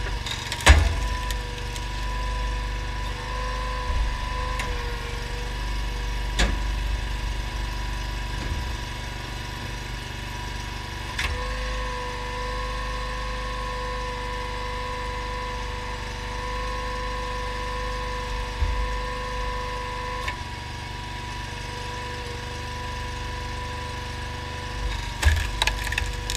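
Honda GX690 V-twin engine running steadily, driving a homemade hydraulic log splitter, with a steady whine that shifts slightly in pitch at times. Logs crack as they split and knock against the steel: a sharp crack about a second in, then several fainter knocks.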